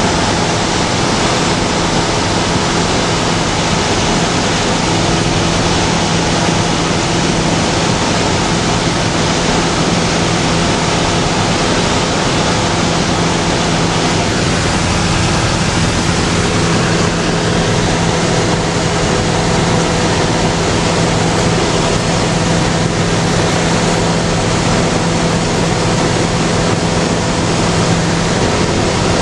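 Cabin noise of a small high-wing light aircraft in level flight: a steady engine and propeller drone with a low hum under loud rushing air, unchanging throughout.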